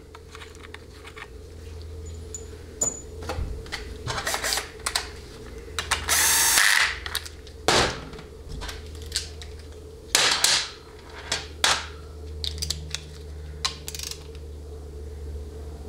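Hand socket ratchet clicking in short runs as small 8 mm bolts are run down on a transmission's valve-body spacer plate, with clinks of tools and metal parts and a loud clatter about six seconds in, over a steady low hum.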